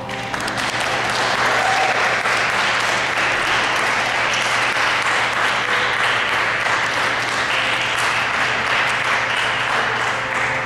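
Audience of adults and children applauding. The clapping swells within the first second and then keeps on steadily.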